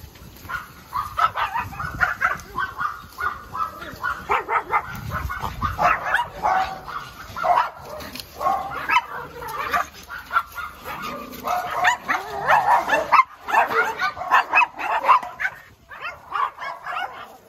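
Dogs barking in rapid, repeated barks, with a short pause about three-quarters of the way through; they are stirred up by cattle grazing just beyond the fence.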